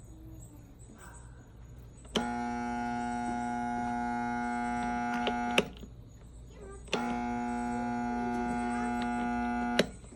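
Husky 1800 electric pressure washer's motor buzzing steadily without spinning up, twice, each for about three seconds, switched on and off with a click each time: the washer won't start.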